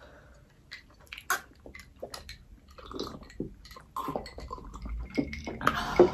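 Close-up eating and drinking sounds: sips and swallows of cola and chewing, with scattered small clicks and mouth noises. They get busier and louder near the end.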